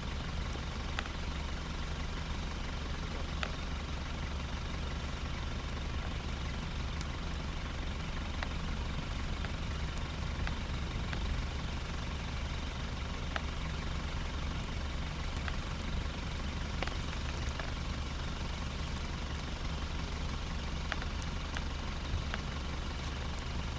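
A vehicle engine idling steadily: an even low hum that does not change, with a few faint clicks.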